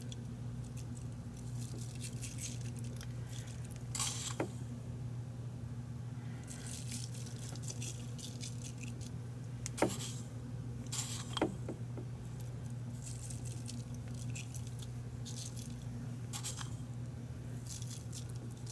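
Kosher salt sprinkled by hand over oiled asparagus in a ceramic baking dish: a faint patter of falling grains with a few light clicks, over a steady low hum.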